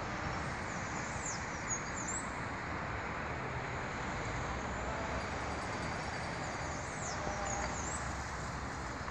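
Steady outdoor background rumble with a few quick, high bird chirps, a cluster between one and two seconds in and another around seven seconds.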